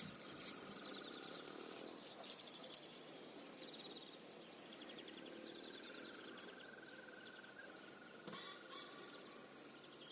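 Birds chirping faintly in rapid repeated trills, with a few sharp clicks in the first seconds.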